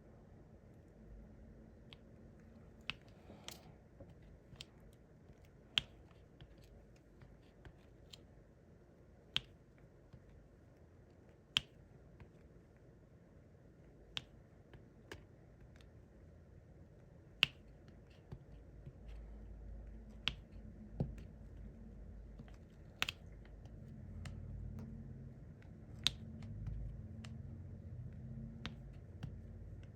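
Sharp single clicks at an uneven pace, about one every one to three seconds: a diamond painting pen tapping drills down onto the sticky canvas. A low hum comes up about two-thirds of the way through.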